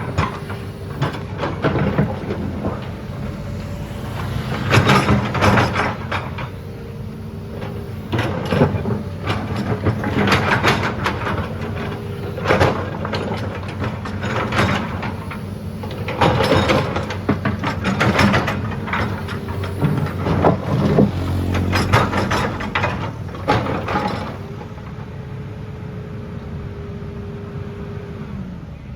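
Excavator's diesel engine running steadily under load with a hydraulic whine, broken by repeated bursts of scraping and clatter about every one to two seconds as the bucket works the soil. Near the end the clatter stops and only the engine and a steady whine remain.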